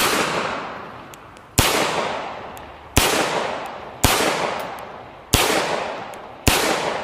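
Six single gunshots from a broomhandle Mauser C96 pistol, spaced about one to one and a half seconds apart. Each shot rings out with a long echo that fades over about a second.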